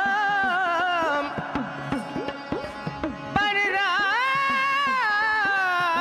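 Dhadi folk ensemble playing: the sarangi holds long, wavering melody notes over strokes of the dhadd hourglass drums, whose pitch bends downward on each beat. About a second in, the held notes drop out and the dhadds play alone for about two seconds before the melody comes back in.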